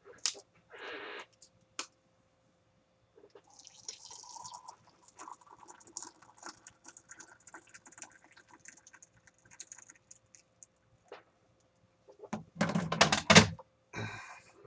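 Just-boiled water poured from a kettle into a mug, a thin trickling splash lasting several seconds. Near the end, a loud clatter of knocks as things are set down and handled.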